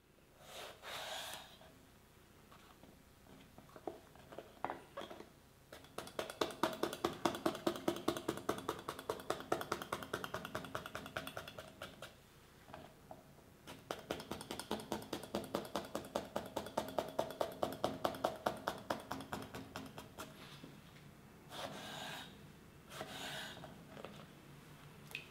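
Kitchen knife scoring the skin of an eggplant on a wooden cutting board with shallow diagonal cuts: two long runs of quick, even strokes, about five a second, with a short pause between. A few single cuts near the start and near the end as the eggplant is trimmed and halved.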